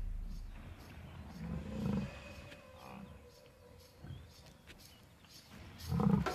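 Lionesses growling in short, low bursts at about two seconds in, around four seconds and again near the end, as they go for African buffalo.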